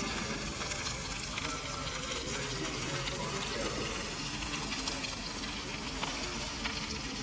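Restaurant ambience: a steady rushing hiss with faint, indistinct background voices and a few light clicks.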